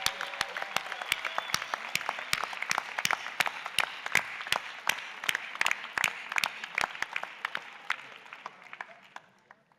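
Applause from a crowd, with many close, sharp hand claps, thinning out and dying away near the end.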